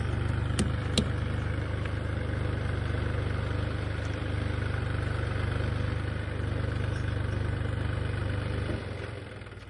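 Swaraj 744 FE tractor's three-cylinder diesel engine idling steadily, with two sharp clicks about a second in. The sound fades out near the end.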